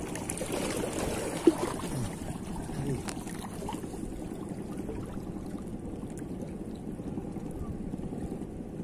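Sea water lapping and sloshing against a rocky breakwater in a steady wash, with a brighter splashy stretch in the first two seconds and one sharp click about a second and a half in.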